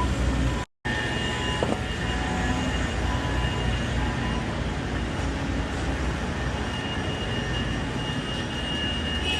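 Semi truck's diesel engine idling, a steady low rumble with a faint high steady whine over it; the sound cuts out completely for a moment under a second in.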